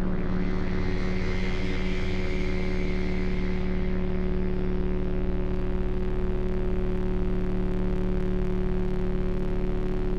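A steady drone with a low held tone and a higher overtone. A hiss swells and fades over the first few seconds.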